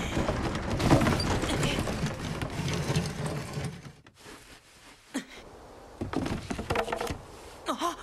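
Loud rushing, crashing noise as the two fall and tumble, dying away sharply about four seconds in. Scattered light knocks follow, with a short pitched sound near the end.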